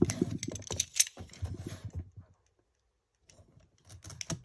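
Hands handling and opening a trading card box's packaging: quick clicks and crackles for about two seconds, a pause, then more handling near the end.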